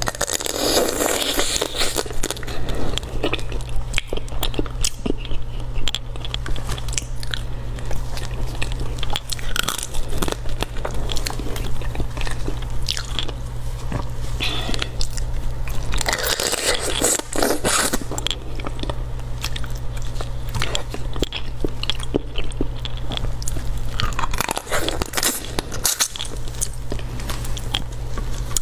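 Close-miked eating of spicy raw marinated crab: repeated biting and chewing, with crunches of crab shell. A steady low hum runs underneath.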